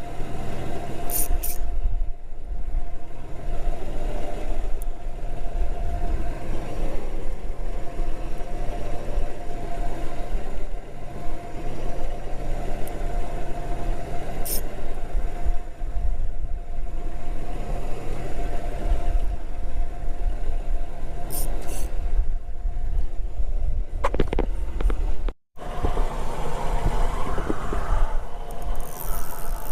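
A boat's engine running steadily with a constant low drone and hum. About 25 seconds in, the sound drops out completely for a moment, then resumes.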